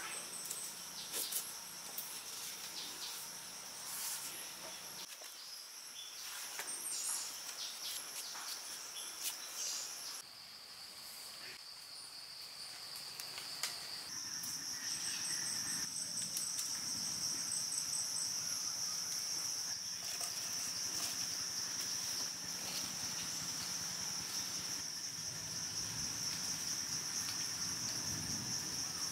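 Steady high-pitched drone of forest insects, with faint light clicks and knocks of thin wooden sticks being handled. The drone dips in pitch about ten seconds in and comes back a little louder a few seconds later.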